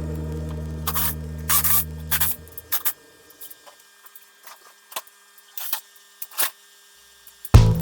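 Background music with a low drone fades out in the first few seconds, followed by a scattering of short, sharp hisses. Music starts again loudly near the end.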